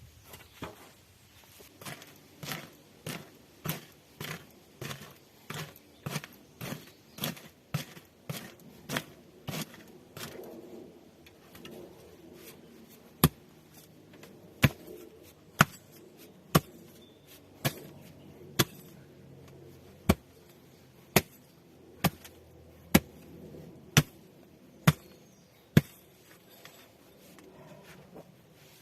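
Repeated hand-tool blows, such as hammering or chopping: a run of softer strikes, quicker than one a second, for about ten seconds, then after a short pause a series of sharp, loud strikes about once a second.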